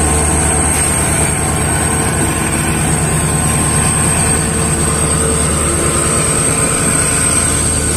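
Indian Railways diesel locomotive moving off with a departing passenger train and passing close by. Its engine runs loud and steady: a deep throb with a steady high whine above it.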